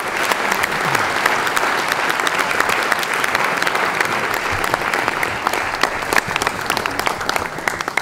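Theatre audience applauding after a speech, a dense steady clapping that begins to thin out near the end.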